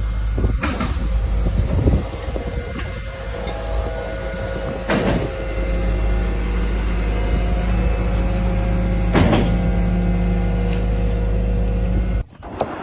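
A large engine running steadily at a constant speed, with a steady whine over it and a few sharp clanks. The sound stops abruptly near the end.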